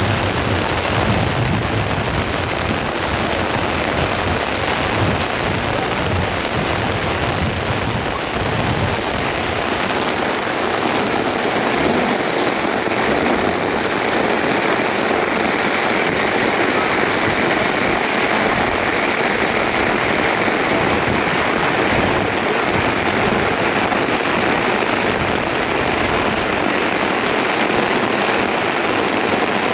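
Heavy cloudburst rain pouring down steadily and loudly, hammering on the ground and surfaces.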